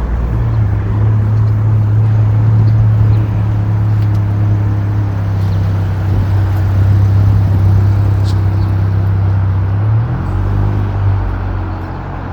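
A motor vehicle's engine running nearby: a loud, steady low hum that holds one pitch, then shifts and drops off about ten seconds in.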